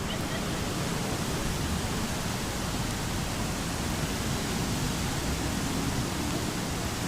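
Steady rush of a mountain waterfall and stream.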